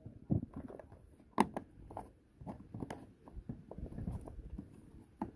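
Scattered small clicks, taps and scrapes of hands handling and fitting roof rack parts of plastic and metal, with one sharper click about one and a half seconds in.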